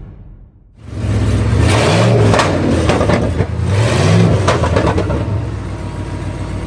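A motor-vehicle engine running loudly from about a second in, revved twice so that its pitch rises and falls.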